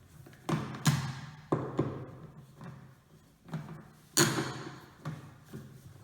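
Sharp plastic taps and knocks as the wheels are fitted and screwed onto the base of a wet/dry vacuum cleaner, each echoing briefly in an empty room. The loudest knock comes about four seconds in.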